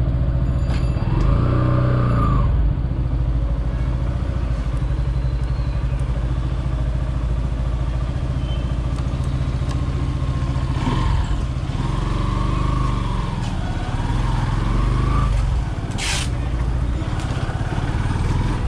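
Motorcycle engine running steadily under way, with a brief sharp noise about 16 seconds in.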